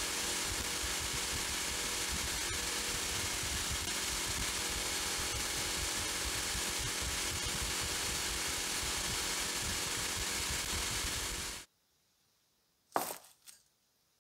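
Abrasive blasting gun in a sandblasting cabinet, hissing steadily as slag abrasive is blasted at a rusty metal stove part. It cuts off suddenly near the end, followed by two quick knocks as a blasted metal part is set down.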